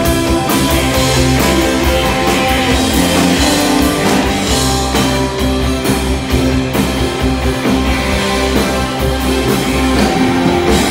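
Live rock band playing loud, with electric guitar and a drum kit keeping a steady beat.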